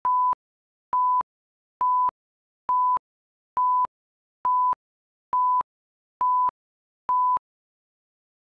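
Countdown beeps: nine short electronic beeps of one steady pitch, evenly spaced a little under a second apart, then silence.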